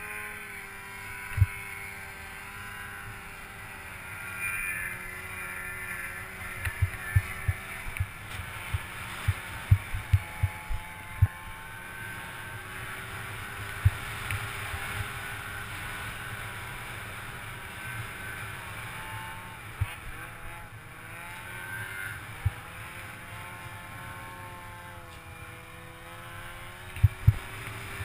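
Snowmobile engine running ahead while towing a skier on a rope, its pitch rising and falling with the throttle. Sharp low thumps come and go, clustered around a third of the way in and again near the end.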